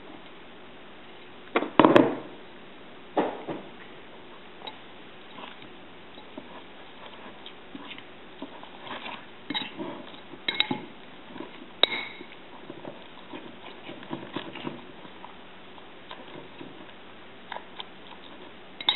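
A metal utensil stirring a wet mix of chopped greens in a ceramic bowl, with light clinks and scrapes against the bowl. A couple of louder knocks come about two and three seconds in.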